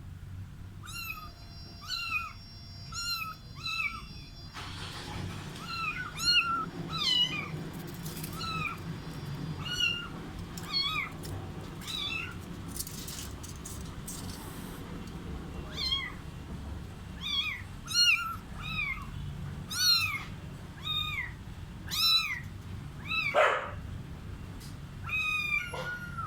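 Stray cats meowing over and over, short high calls that rise and fall in pitch, often about one a second, with brief gaps; hungry cats crying for food.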